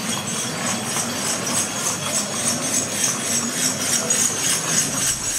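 Horse-drawn cidomo cart passing close on a paved lane: hooves clip-clopping and harness bells jingling in a steady rhythm with each step.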